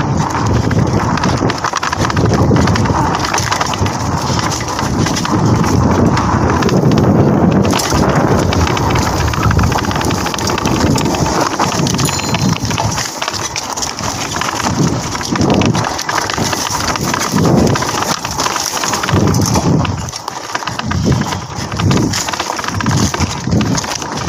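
Mountain bike rattling and knocking as it is ridden fast over a bumpy dirt trail, with wind buffeting the microphone.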